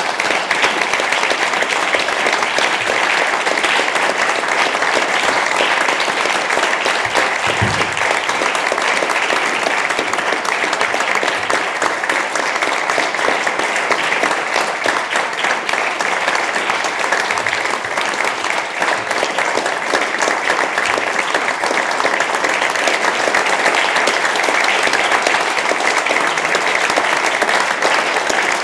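Theatre audience applauding, dense and steady clapping that holds at an even level throughout.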